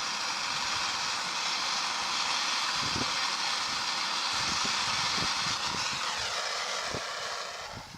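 Steady rushing engine noise from a passing vehicle. A whine falls in pitch about six seconds in, and the noise fades away near the end.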